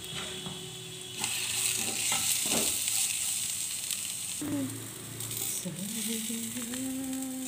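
Strips of onion, carrot and capsicum sizzling in a hot pan as they are stir-fried with spices, with a few short clinks and scrapes from the stirring.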